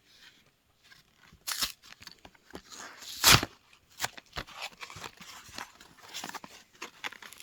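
Hot Wheels toy-car packaging being handled and torn open: scattered crackles and clicks, with one loud rip about three seconds in.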